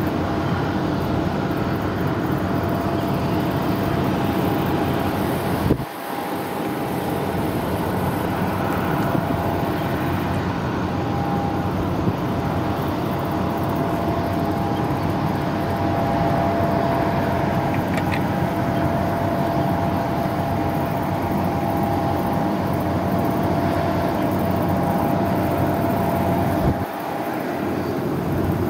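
Airbus A330-900neo's Rolls-Royce Trent 7000 turbofans at taxi idle, a steady rushing hum with a faint whine. The level dips briefly twice.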